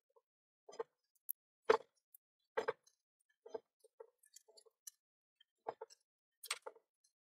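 Irregular soft clicks and ticks, about one or two a second, of thin 0.355 mm enamelled copper wire being pulled by hand through the paper-lined slots of an angle grinder armature during rewinding.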